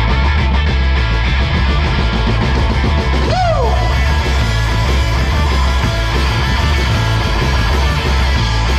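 Live rock band playing loud, with electric guitar over a heavy, steady bass and drums, and no singing yet. About three and a half seconds in, one note bends sharply downward.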